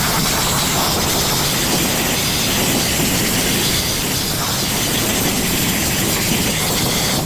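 Sandblaster blasting steadily: a loud, even hiss of abrasive and compressed air striking rusty steel.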